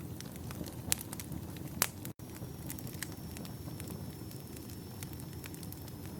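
Campfire of firewood logs burning: a steady low rumble of flame with frequent small crackles and two sharp pops in the first two seconds.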